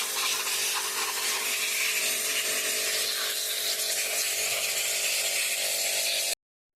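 A machine running steadily with a strong hiss and a low hum, cut off abruptly about six seconds in.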